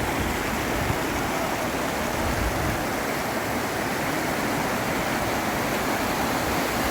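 Floodwater rushing down a swollen mountain river: a steady, unbroken wash of noise.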